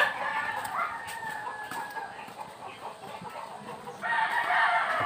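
Rooster crowing: a long crow trailing off in the first two seconds, and another starting about four seconds in.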